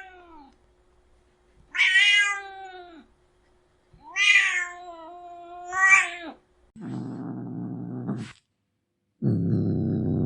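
Domestic cat yowling three times in drawn-out, wavering calls, then growling low twice, once about seven seconds in and again from about nine seconds on.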